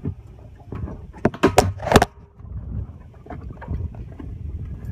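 Several sharp knocks and clatters, bunched between about one and two seconds in, from gear being handled at a fibreglass boat's livewell, over a low steady rumble.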